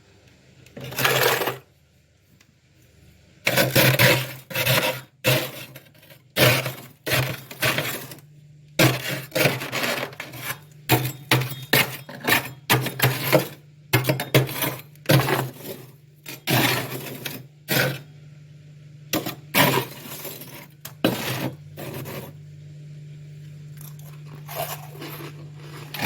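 Freezer frost being bitten and chewed close to the microphone: a long run of crisp crunches, sometimes several a second, thinning out near the end, over a low steady hum.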